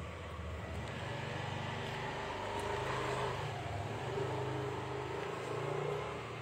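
A motor vehicle's engine running with a steady, slightly wavering hum that fades a little near the end.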